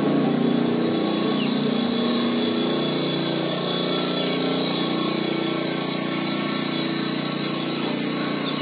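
Steady mechanical hum with a faint high whine running over it.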